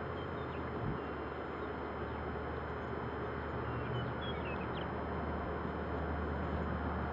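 Steady outdoor background hiss with a constant low hum, and a few faint high bird chirps near the start and again about four to five seconds in.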